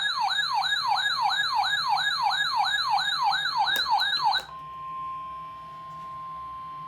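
An electronic alert siren sweeps repeatedly downward in pitch, about three to four times a second, then cuts off suddenly after about four seconds. It leaves the quieter, single steady 1050 Hz NOAA Weather Radio warning alarm tone of a weekly test.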